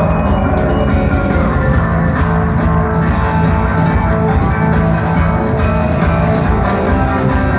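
Rock band playing live at full volume: sustained low bass notes, guitar and drum kit, heard from within the audience.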